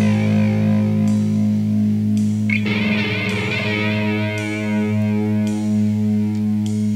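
Progressive metal band playing live in a small rehearsal room, captured by a single room microphone onto cassette: sustained distorted electric guitar chords with a wavering effect over bass and drums, with cymbal hits about once a second. The chord changes about two and a half seconds in.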